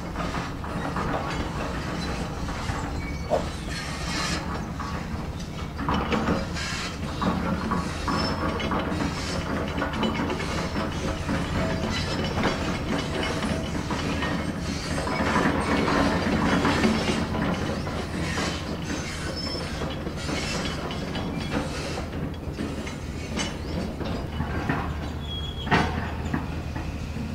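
Hydraulic excavator's diesel engine running steadily under load, with repeated metallic clanks and knocks from the machine as it digs and moves, a little louder about halfway through.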